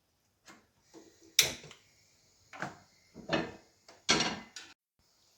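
A series of separate knocks and clunks from kitchen items being handled and set down. The loudest comes about a second and a half in.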